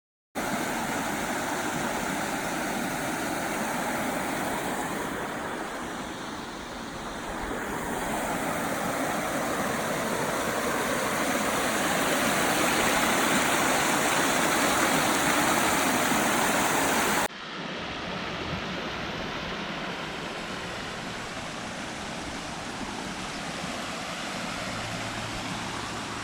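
Rushing water, a steady loud wash of stream noise. It breaks off abruptly about seventeen seconds in and picks up again a little quieter, as from a second clip of the same kind of water.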